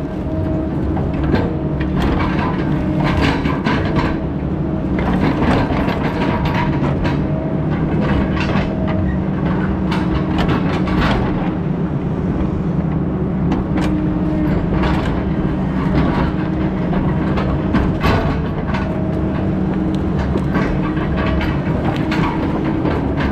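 Heavy diesel logging machinery running steadily under load, with frequent sharp clanks and cracks throughout.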